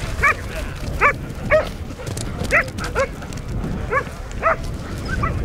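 Ibizan hound (podenco ibicenco) yelping: short, high yips that rise in pitch, about two a second at an uneven pace.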